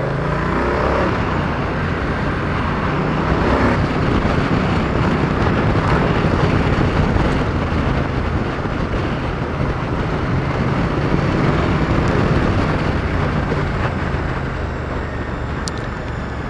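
Moto Guzzi V100 Mandello's 1042 cc liquid-cooled 90-degree V-twin running steadily at road speed, heard from the riding bike under heavy wind rush.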